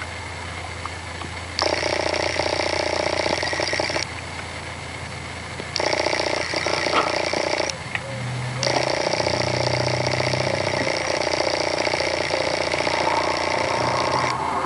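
A steady mechanical whir that switches on and off abruptly three times, each run lasting about two to six seconds.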